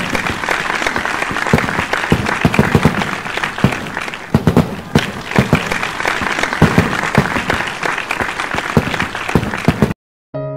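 Dense applause mixed with a fireworks sound effect of irregular pops and crackles. Both cut off suddenly near the end, and solo piano music begins.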